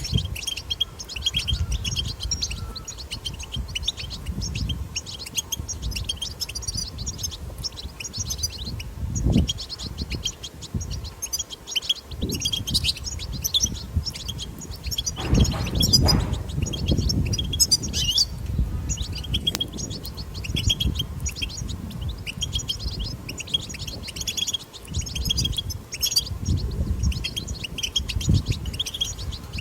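Wild European goldfinches twittering: a continuous run of quick, high chirps and trills. Under it runs a low rumble that swells about halfway through.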